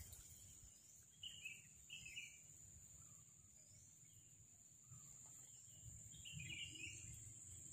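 Quiet open-air ambience: a steady high-pitched insect drone with a few short bird chirps, about a second in, at two seconds, and again near the end.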